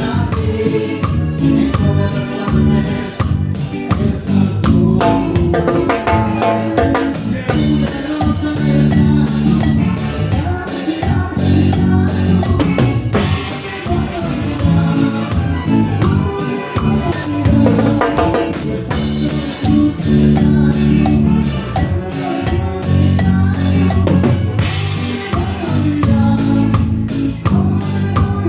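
Band music with a drum kit keeping the beat on bass drum and snare under held melodic lines.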